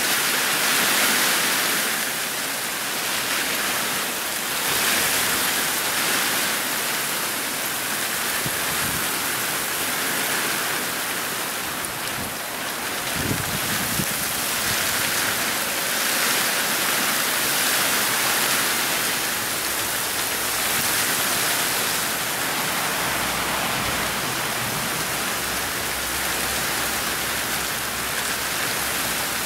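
Heavy rain falling in a steady hiss that swells and eases in waves with the gusts of a passing storm. A brief low bump comes about halfway through.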